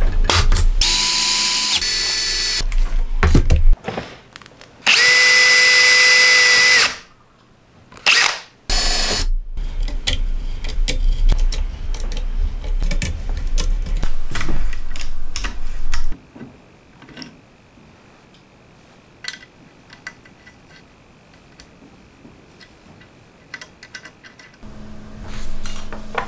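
A small power tool running in several bursts, one held steady for about two seconds, with metal tool clatter and clicks during metalworking on a circular saw's base plate. The second half is much quieter, with only light handling clicks.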